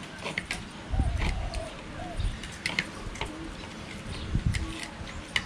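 Metal forks and spoons clicking and scraping on plates as diners cut crispy-skinned deep-fried pork knuckle, with a few low thuds about a second in and again near the end.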